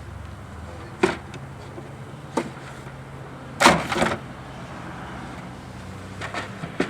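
A few sharp knocks and clatters of wooden beehive equipment being handled, the loudest a double clatter about halfway through, with two more knocks near the end, over a steady low hum.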